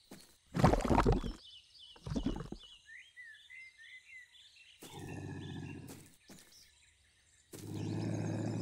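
Two heavy splashes as the characters jump into a mud pool, the first about half a second in and the second about two seconds in, with birds chirping. Then a cartoon lynx growls low, once at about five seconds and again near the end.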